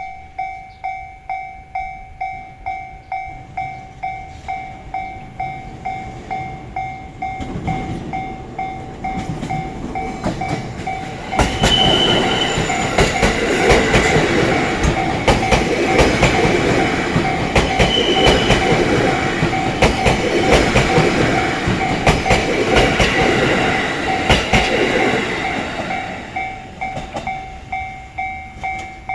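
Level crossing warning bell ringing in a steady, regular ding-ding while a JR East E233 series electric train passes over the crossing. The train's noise builds from about seven seconds in and jumps up at about eleven seconds, with the wheels clattering over rail joints. It fades away a couple of seconds before the end, leaving the bell ringing on.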